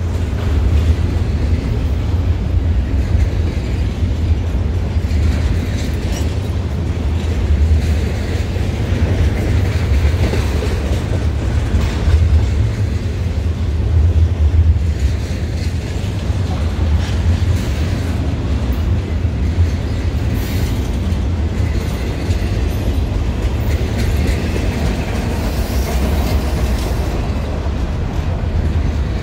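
Double-stack intermodal freight train rolling past close by: a loud, steady low rumble of the cars with the clickety-clack of wheels over rail joints.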